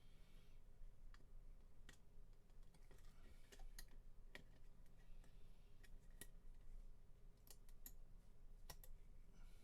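Faint, irregular small clicks and taps of plastic model-kit parts and tools being handled and fitted together, over a low steady hum.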